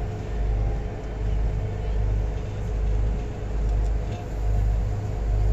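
Low rumble of a river cruise boat under way, swelling and easing about once a second.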